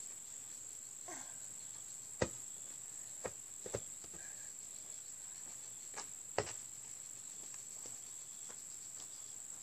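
A steady high-pitched drone of insects, with about five sharp knocks of a basketball. The loudest knock comes about two seconds in, and two more come close together around six seconds in.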